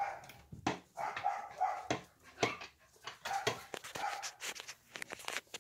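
Young puppies whining in short, repeated high cries, with scuffing and knocking close to the microphone.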